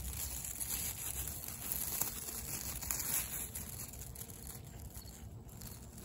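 Soft rustling and crinkling of a mesh organza bag being handled and drawn closed over a flower head, with a few faint clicks.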